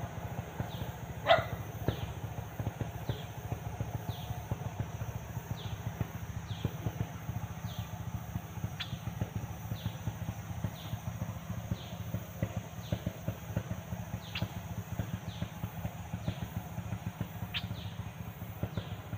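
A bird giving a steady series of short, falling whistled notes, about one every three-quarters of a second, a few of them louder. A constant low crackling rumble runs underneath.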